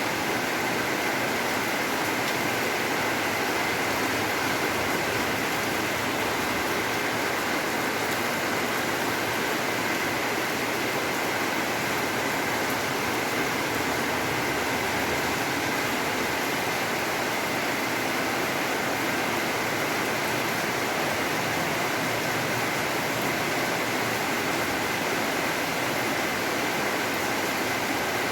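Steady heavy rain falling, an even hiss, with a faint steady high tone running through it.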